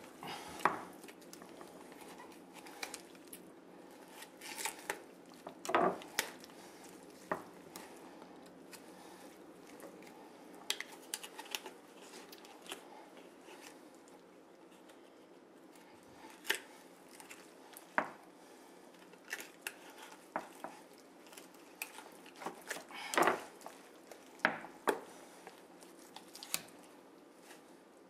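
Knife and hands deboning a raw turkey on a wooden board: scattered, irregular clicks and knocks of the blade against board and bone, with softer sounds of skin and meat being worked off the carcass. A few knocks stand out louder than the rest.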